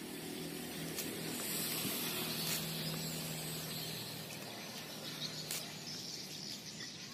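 Outdoor ambience: a steady hiss with a faint motor hum underneath that fades out about halfway through.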